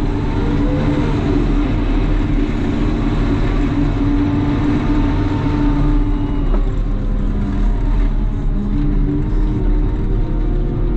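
CAT loader's diesel engine running steadily under load while pushing snow, with a brief rise and fall in pitch about a second in.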